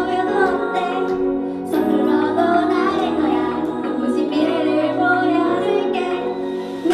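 Female voice singing an idol-pop song over a backing track of sustained chords.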